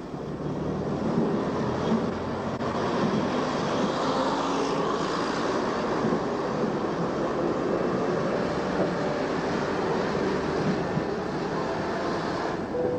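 Diesel multiple unit train running, a steady engine and wheel noise that cuts off near the end.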